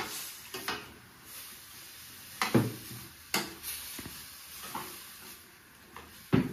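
Utensils knocking and scraping against a cooking pan while ground masala is added to chicken and stirred. About seven sharp knocks are spread out, the loudest about two and a half seconds in.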